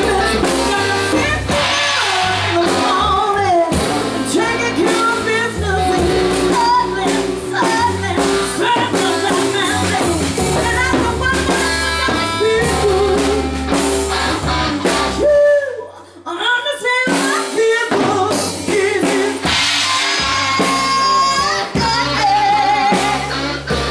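Live band playing with singing, drum kit and guitar. The band drops out for about a second and a half about two-thirds of the way through, then comes back in.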